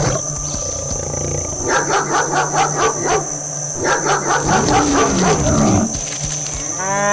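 Dog-barking sound effect: two runs of quick barks about a second apart, followed by a lower, falling growl. A cow starts mooing right at the end, over a steady high-pitched whine.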